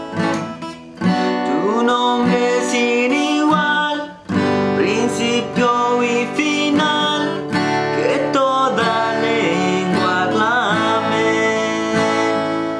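Acoustic guitar strummed through a chord progression, with a man singing a wordless melody along with it.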